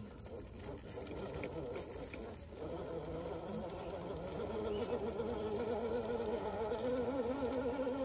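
A 1/10-scale RC rock crawler's 13-turn brushed motor and transmission whining under low-speed throttle as it crawls up a steep rock face. The pitch wavers with the throttle, and the whine gets louder about halfway through.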